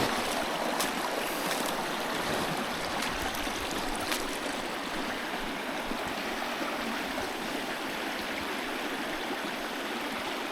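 A small stream's water running steadily over rocks, with a few faint clicks in the first few seconds.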